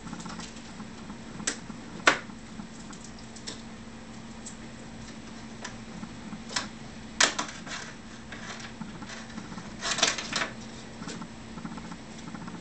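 Handling clicks and light knocks as a ducted-fan unit is pushed and turned in the model jet's fuselage, with its wires moved about; the loudest knock comes about two seconds in and a cluster of clicks near the end. A faint steady low hum runs underneath.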